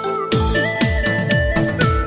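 Electronic dance music with a fast kick-drum beat and a synth melody.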